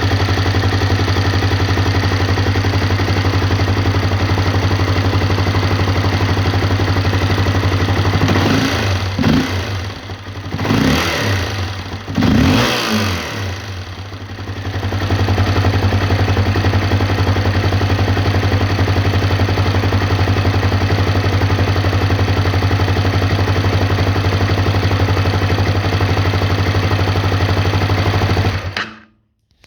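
Honda CRF250L's single-cylinder four-stroke engine idling steadily, revved in about three quick blips partway through, then settling back to idle and cutting off suddenly near the end. The engine is being run to show a knock, which the owner reports.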